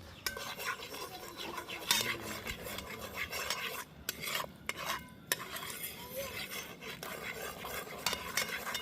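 A spoon stirring and scraping around a pot of sugar burning in hot oil, in irregular strokes and knocks against the pot, with a light sizzle.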